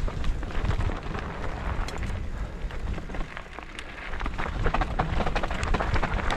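Mountain bike rolling over a rough trail: a continuous crunch and rattle of tyres and frame over dirt and rocks, with wind rumbling on the microphone.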